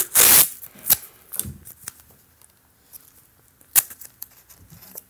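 Close handling of paper and tape on a tabletop. A short rasping rustle comes first, then a few scattered clicks and taps, the sharpest one near the end.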